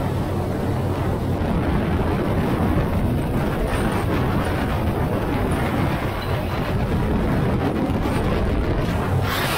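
Motorcycles cruising at highway speed: a steady low engine drone under loud wind rush over the bike-mounted microphone. Just before the end the wind noise suddenly turns louder and hissier.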